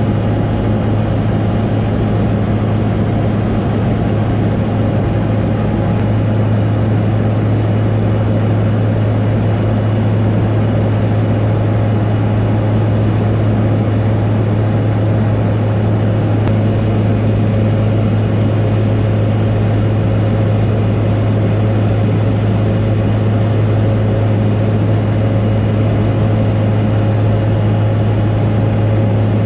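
Engine and propeller of a high-wing light aircraft in cruise, heard inside the cabin: a loud, steady low drone that does not change.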